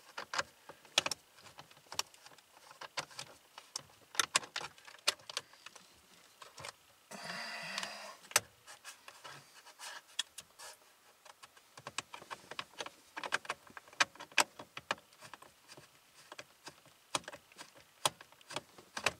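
Scattered sharp clicks and light metallic taps of hand tools working at the captive screws that hold the steering wheel's driver airbag, which are refusing to let it go. A brief rustling noise comes about seven seconds in.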